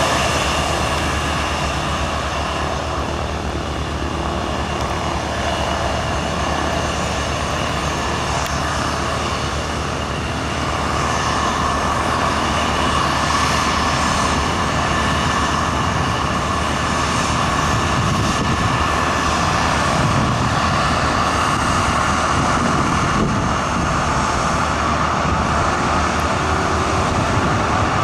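Bombardier CRJ700's two tail-mounted GE CF34 turbofans running at taxi power: a steady jet whine over a rushing roar, a little louder from about ten seconds in.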